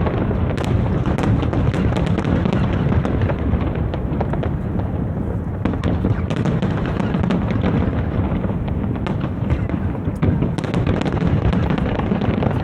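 Aerial fireworks going off in a dense, continuous barrage: booms over a steady low rumble, with many sharp pops and crackles throughout.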